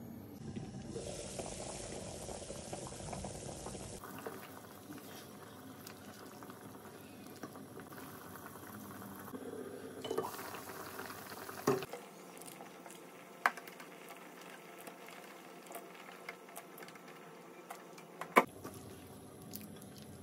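Broth boiling in a lidded pot on a gas burner, bubbling steadily, with a few sharp clinks as the glass lid and pot are handled.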